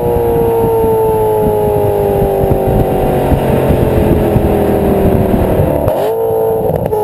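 BMW M3 E92's V8 running through a Vanguard cat-back exhaust with an AE Performance high-flow-cat X-pipe while driving. The engine note falls slowly as the revs drop, then jumps up sharply in pitch about six seconds in and begins falling again.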